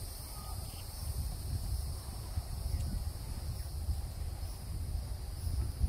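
Steady high-pitched drone of an insect chorus, with a low, uneven rumble of wind on the microphone underneath.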